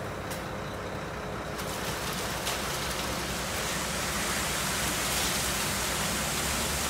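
Concrete mixer truck running while wet concrete pours down its chute with a steady gravelly rush over the engine's low rumble; the rush grows louder about two seconds in.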